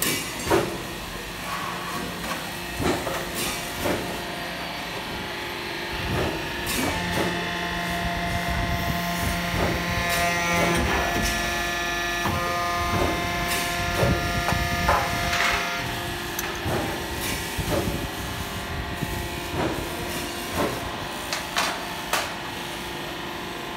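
Hydraulic press running in a sheet-metal shop, deep-drawing galvanized steel trays. Its pump gives a steady hum with a whine, which grows stronger for a few seconds near the middle. Metal clanks and knocks from sheets being handled are heard throughout.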